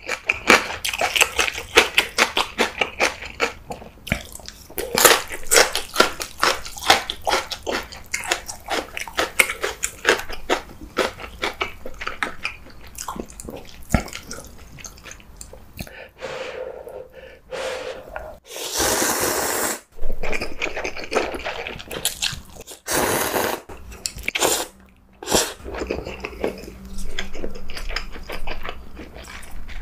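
Close-up crunchy chewing of red-pepper-seasoned green vegetables, many quick crunches in a row. Past the middle come long slurps of ramen noodles, the longest about two-thirds of the way through.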